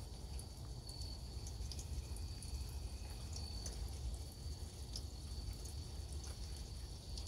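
Rainwater dripping in scattered small drops, over a steady low rumble and a thin, steady high-pitched tone.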